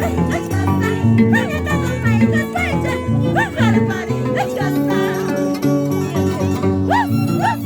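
Andean harp music: a lively jarana tune of plucked bass and chord notes, with a higher melody line of quick rising-and-falling slides over it.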